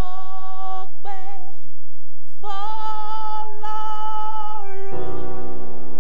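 A woman singing solo, holding long notes with a slight waver and pausing briefly between phrases. About five seconds in, fuller music with low notes comes in beneath.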